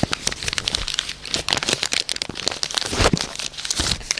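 A sheet of paper crumpled and crinkled close to the microphone, a dense, irregular run of crackles, made to imitate the crackling rales heard through a stethoscope over the lungs.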